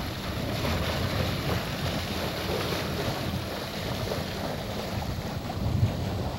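Wind buffeting the microphone in a steady, uneven low rumble, over the rush and splash of open seawater around a boat under way.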